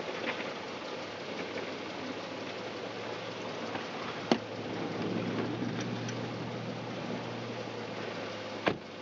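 A stuck car's engine idling with a low steady hum under a continuous rushing noise. Two sharp knocks come about four seconds apart, the second near the end, where the hum stops.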